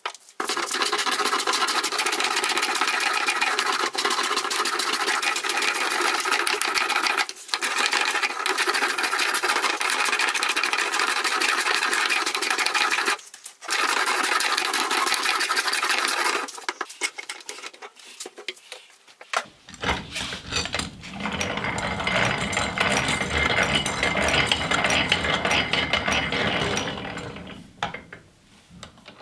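A steel hand plane shaving teak boards in long, continuous passes, with short pauses between them. About two-thirds of the way in this gives way to an antique hand-cranked cast-iron post drill being turned, its gears and feed ratchet clicking rapidly.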